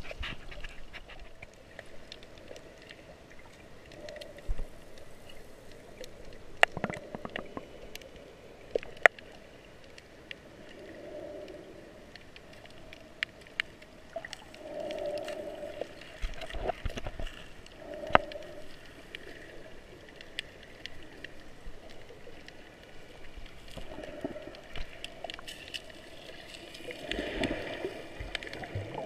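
Muffled underwater water movement heard below the surface while snorkeling: soft gurgling swells with scattered sharp clicks, the loudest a few seconds apart, and a louder gurgling stretch near the end.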